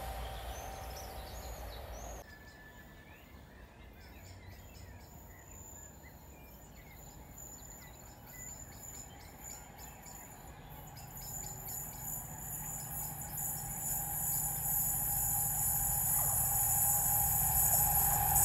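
The fading sound of a passing train cuts off about two seconds in, leaving birds chirping over quiet rural ambience. Then a diesel freight locomotive approaches along the line, its engine and wheel noise growing steadily louder through the second half.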